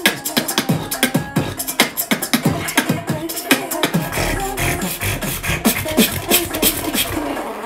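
Vocal beatboxing: a man making fast mouth-percussion beats, sharp clicks and hits, woven together with short hummed pitched notes. A deep bass hum runs under the beat for a few seconds past the middle.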